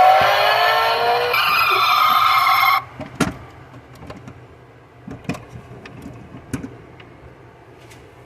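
Electronic engine-revving sound effect from a toy Bugatti Chiron model's speaker, rising in pitch with a gear-shift step about a second in, then cutting off suddenly just under three seconds in. A few light clicks and knocks follow.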